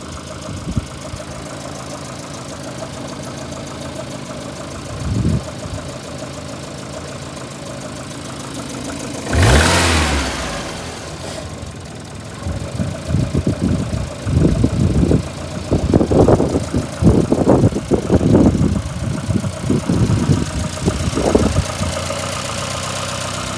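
VAZ 2115 8-valve engine running with a knocking, rubbing noise. The owner cannot find its cause; it appeared after a blown head gasket at cylinder one was replaced, and he wonders whether the valves are worn. It is revved once about ten seconds in, then gives a run of short, irregular louder surges through the second half.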